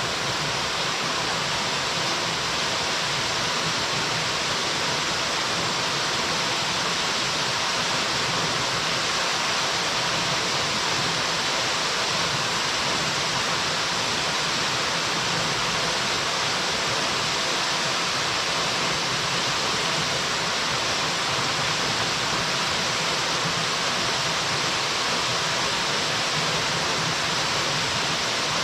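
Waterfall: water falling and splashing in a steady, unbroken rush, mostly a bright hiss.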